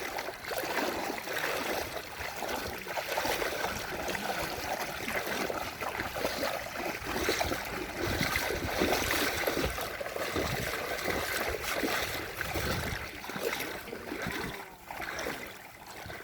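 Shallow creek water splashing and trickling, with many small irregular splashes.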